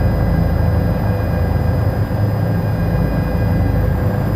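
Bell 407GXi helicopter hovering, heard inside the cabin: the steady rumble of the main rotor and turbine engine, with several thin, steady whining tones above it.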